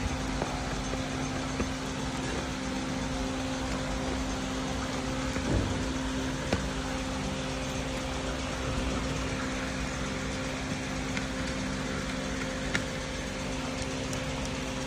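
Steady machine hum with a constant low tone throughout, and a few light metallic clicks as a screwdriver works the screws of a CPU fan heatsink on a motherboard.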